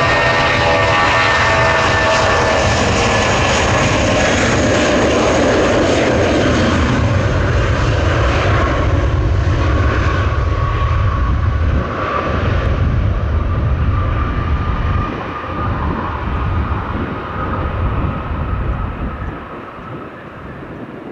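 Jet airliner engines passing close: a loud rush with a whine of steady tones that sink slightly in pitch, then fading away over the second half.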